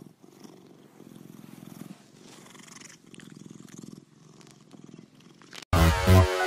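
Domestic cat purring close to the microphone, in soft waves that rise and fall about once a second. Near the end, loud music cuts in abruptly.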